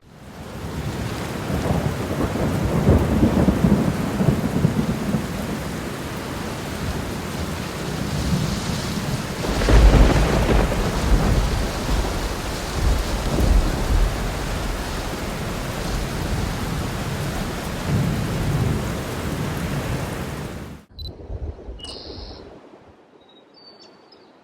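Rain falling steadily with thunder rumbling several times, the loudest roll about ten seconds in. The storm sound cuts off suddenly near the end, leaving only a few faint short high-pitched sounds.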